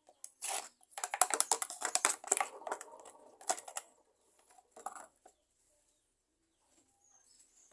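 Scraping and rattling as the chute of a homemade coconut grater is cleaned out by hand, with the motor off. A dense run of scrapes and clicks lasts about three seconds, then one short burst comes near five seconds in.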